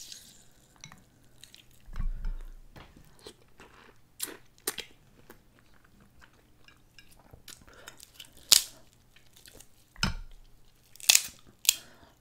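Snow crab leg shells cracking and snapping as they are broken apart by hand and the meat is pulled out, with close-up chewing in between. The sharp cracks come scattered, the loudest about eight and a half seconds in and two more near the end, with a couple of dull thumps.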